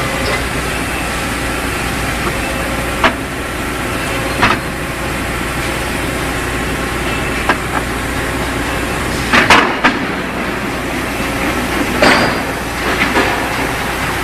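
Friction welding machine running steadily, with half a dozen sharp clanks scattered through, the loudest cluster about nine and a half seconds in.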